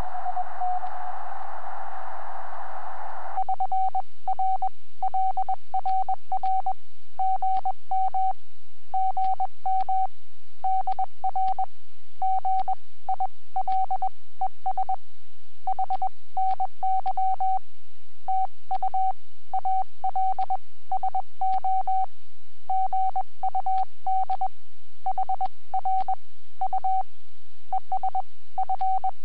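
HF amateur radio transceiver in CW mode on the 30-metre band: at first a hiss of band noise through the receiver's narrow filter, then from about three seconds in a steady Morse code tone, near 750 Hz, keyed on and off in dots and dashes.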